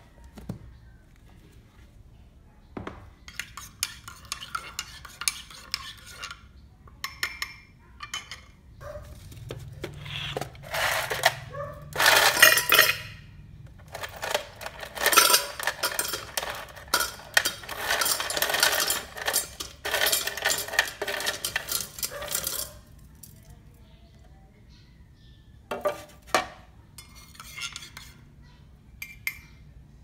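Kitchen clatter and clinking: a plastic tub's contents tipped into a tumbler, with dense rattling in the middle and the loudest burst about twelve seconds in, then a few scattered clinks near the end.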